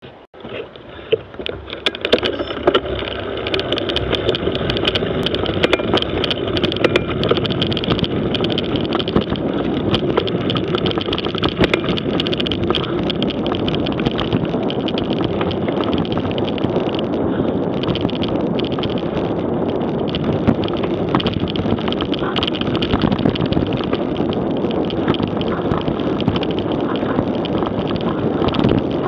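Mountain bike ridden fast over a muddy dirt trail: tyre rumble and wind buffeting the microphone, with sharp rattles and knocks from the bike over bumps, thickest in the first dozen seconds. It starts quiet and builds over the first few seconds as the bike gathers speed.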